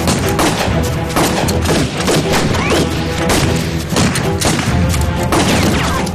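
A fast string of gunshots and blasts in a firefight, over dramatic background music.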